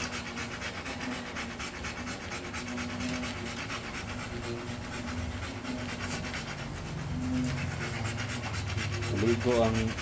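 Siberian husky panting rapidly and steadily while trotting on a running treadmill, over the steady hum and rub of the treadmill's motor and belt. A person's voice comes in about nine seconds in.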